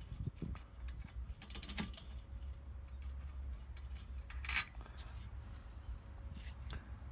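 Light clicks and clatter of small metal parts and tools being handled during hands-on assembly work, with one sharper clack a little past halfway, over a low steady hum.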